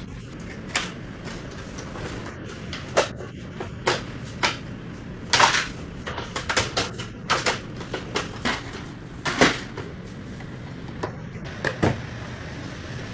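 Clicks, knocks and rattles of plastic and metal parts being handled as an air conditioner is taken apart, irregular and sometimes in quick clusters, over a steady low hum.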